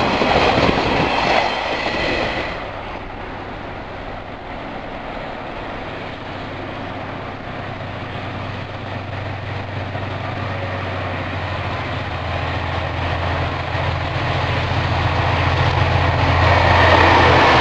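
Container wagons of a freight train rolling past with a clickety-clack for the first two and a half seconds. Then the steady low drone of approaching KiwiRail DC and DBR diesel locomotives with EMD 645 engines grows louder toward the end.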